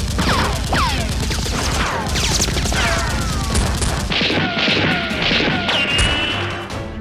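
Gunshot sound effects laid over a Nerf blaster shootout: a quick string of shots with whizzing ricochets that fall in pitch, one after another, over background music.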